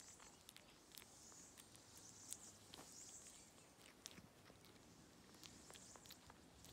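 Near silence with faint, scattered small clicks and ticks from a kitten licking and smacking its lips after being fed a bit of chicken.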